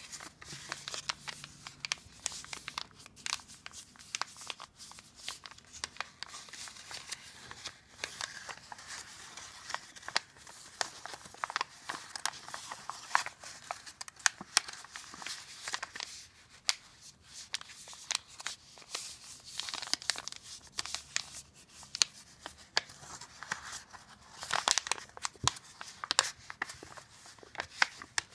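A sheet of paper rustling and crinkling as hands fold it and pull the folded diamond open into a traditional paper boat, with irregular crisp crackles.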